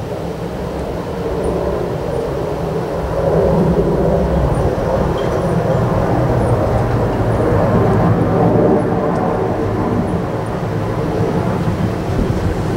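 Strong wind blowing in gusts: a steady low rumble that swells about three seconds in and stays loud.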